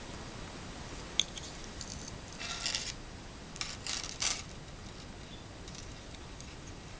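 A metal pocket watch and its chain being handled: a sharp click about a second in, then two short bursts of light metallic jingling and rattling, around two and four seconds in.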